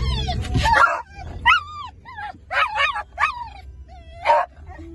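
Beagle giving a string of short, whiny yelping barks that rise and fall in pitch, about six in all. Low car road noise fills the first second and then cuts off.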